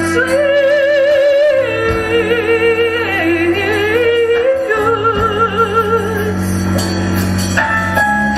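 A female soloist singing long, held notes with strong vibrato over an orchestra's sustained accompaniment.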